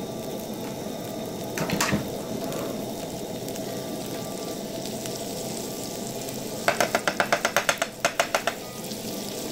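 Beef patties frying in a pan with a steady sizzle. There is a short click about two seconds in, and near the end a quick run of sharp taps from a metal spoon in the pan as margarine is added to the hot fat.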